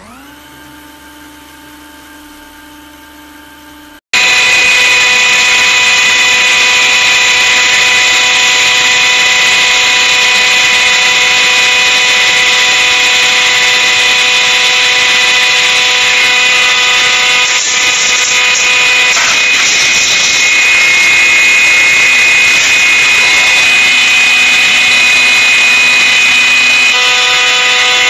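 Hydraulic press running under load as its ram slowly squeezes a plastic bottle. A quieter press hum for about four seconds, then, from a sudden cut, a loud, steady, high-pitched machine whine.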